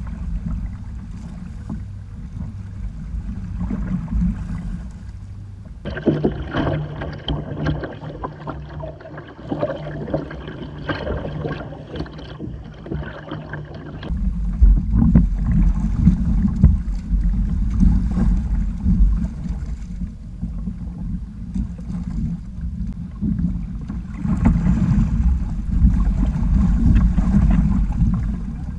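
Water rushing and splashing against the hull of a Hobie sailing kayak under way, with a low rumble of wind on the microphone. About six seconds in the sound turns brighter and more splashy for several seconds, then the heavy low rumble returns.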